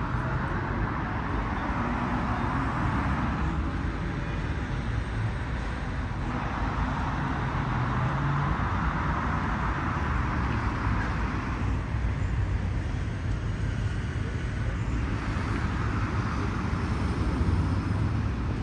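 City road traffic running steadily, a low rumble with passing vehicles swelling and fading every few seconds.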